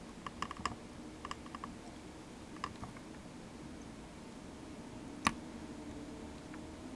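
Small, light clicks and ticks from a soldering iron tip and solder wire being worked against a header pin on a circuit board. A few come in a quick cluster in the first second and a half, and one sharper click comes about five seconds in.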